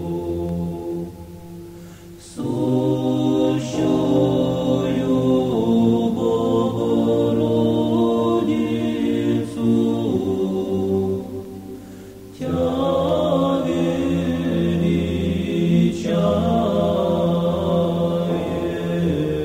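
A choir chanting sacred music in long held chords over a low sustained drone. The voices fall away twice, about two and twelve seconds in, and come back each time with a new phrase.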